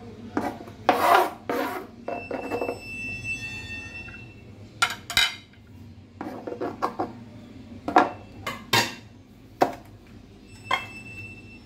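Kitchen knife scraping and knocking on a plastic cutting board, with plates and a steel bowl clattering on the counter: a run of irregular scrapes and clinks.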